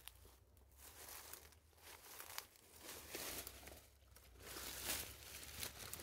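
Faint, irregular rustling and crackling of dry leaves and brush, as someone moves through dry vegetation, with louder rustles about three seconds in and again near five seconds.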